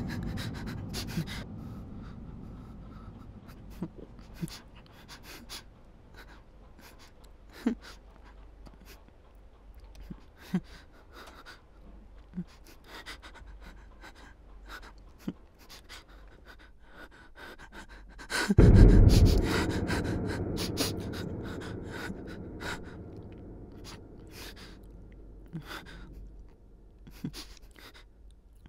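A person's heavy, frightened panting breaths, with scattered small clicks. About two-thirds of the way through, a sudden deep boom hits and fades out slowly over several seconds.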